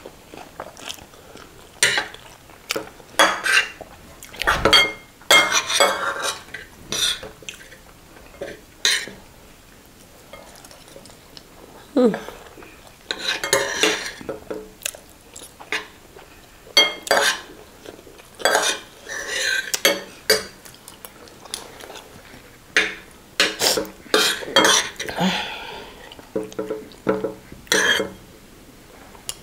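Metal spoons and forks scraping and clinking against ceramic plates of rice, in irregular bursts of short clicks and scrapes.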